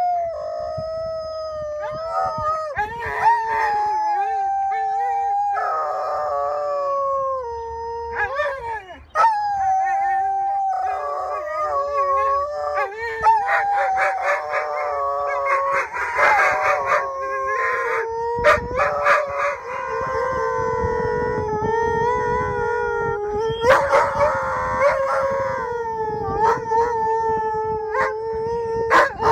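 Two huskies howling together in long, drawn-out howls that overlap and slide slowly in pitch, with a short break about nine seconds in.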